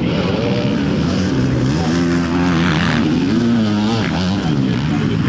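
Several 450-class motocross bikes racing, their engine notes overlapping and repeatedly climbing and dropping as the riders work the throttle and shift.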